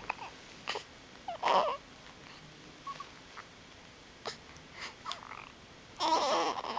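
A baby's short vocal sounds, small grunts and squeaks coming every second or so, with a longer, louder fussing sound near the end.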